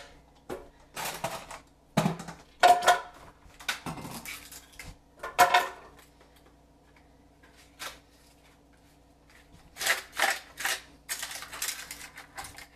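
Clattering and clacking of hard kitchen items being handled and set down on a counter, in short clusters of knocks with a quiet pause around the middle.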